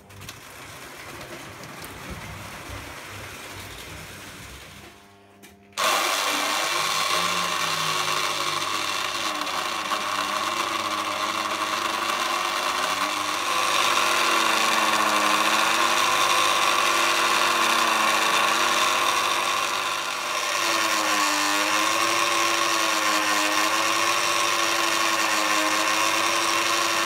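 Lionel toy coal elevator's electric motor whirring loudly as it drives the bucket conveyor, its pitch wavering; it starts suddenly about six seconds in, after a quieter electrical hum.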